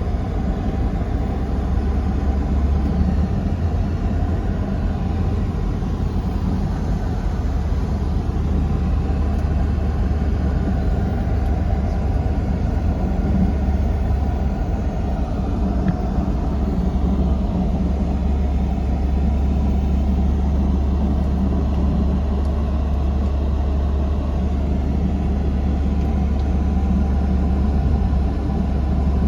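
Tour vehicle engine and road noise heard from inside the cabin while driving: a steady low rumble.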